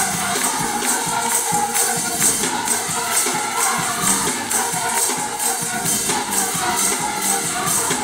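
Youth and young adult gospel choir singing in full voice over a steady percussion beat.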